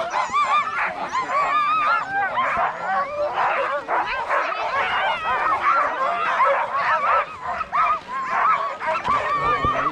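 A team of harnessed sled dogs barking and yelping all at once, many overlapping calls rising and falling without a break: the excited clamor of sled dogs eager to run.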